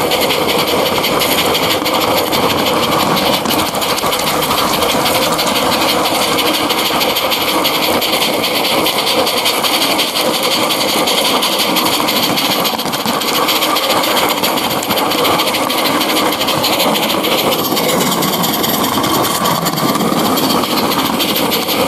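Regner live-steam G-scale model of the Harz locomotive 99 222 running under steam: a steady hiss of exhaust steam with fast, even chuffing.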